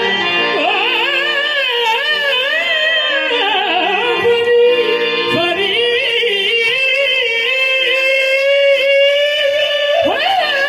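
Qawwali singing: a male voice sings long, ornamented lines that slide up and down in pitch over the steady held tones of harmoniums. A quick upward swoop comes near the end.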